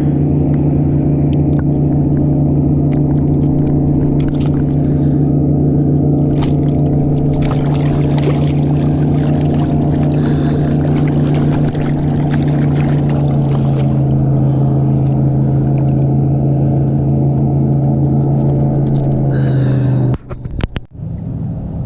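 Boat motor running with a steady low drone. Its pitch drops slightly partway through, and the sound breaks off abruptly near the end.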